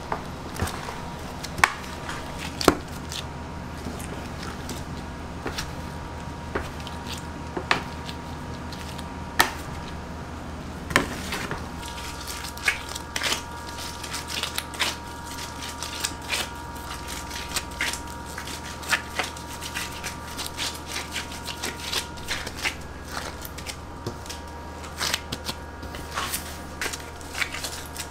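Pizza dough being divided with a plastic bench scraper and shaped by gloved hands: irregular sharp taps and scrapes of the scraper on the work tray, with the dough pressed and handled, over a steady background hum.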